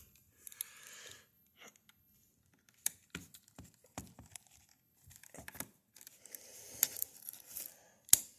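Scattered small clicks, taps and scraping rustles of hands and a screwdriver working on a 2nd gen Lenovo laptop's plastic screen assembly while its screws are removed, with a few sharper clicks spread through.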